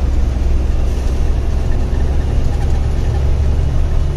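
Truck's diesel engine running steadily as it drives along, heard from inside the cab as a constant low hum with road noise.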